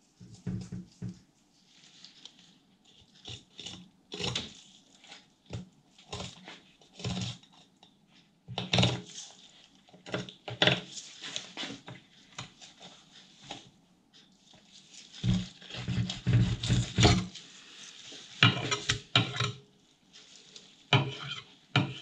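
Filleting knife working on a scaled corvina on a wooden cutting board: irregular scrapes and knocks of the blade and the fish against the board, with a dense run of heavier thumps about two-thirds of the way through as the fish is handled.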